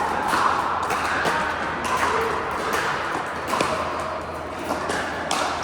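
Pickleball paddles hitting a plastic ball: a string of sharp pops at irregular intervals, with a steady hubbub of voices and court noise underneath.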